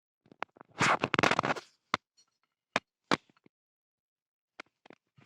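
Handling noise: a short dense clatter about a second in, then a few separate sharp clicks.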